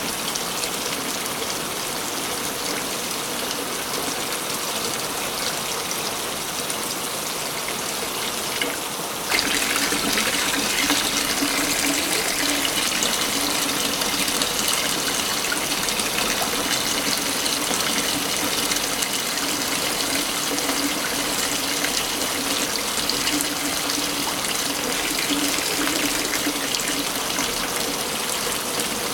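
Waterfall rushing steadily. About nine seconds in it becomes abruptly louder and brighter, as at a splice between recordings, and stays so.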